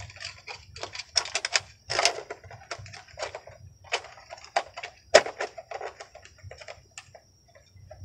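Irregular plastic clicks and clacks from hands handling an RC buggy, with the sharpest knocks about two and five seconds in, fading out near the end. A faint steady high tone runs underneath.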